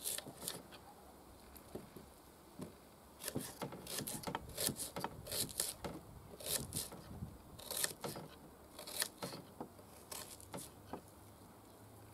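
Kitchen knife slicing an onion into half-rings on a wooden cutting board: irregular crisp cuts and taps of the blade on the board, in quick runs with short pauses, dying away near the end.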